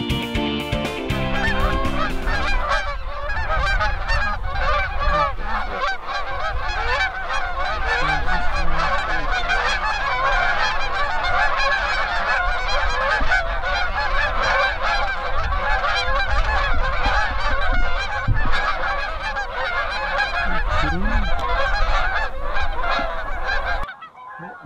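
A large flock of Canada geese flying overhead, dozens of honks overlapping into one continuous clamour that cuts off suddenly near the end. Guitar music fades out in the first two seconds as the honking comes in.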